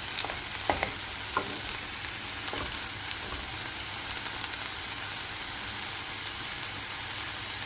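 Food sizzling in a frying pan: a steady hiss, with a few faint clicks in the first second or two.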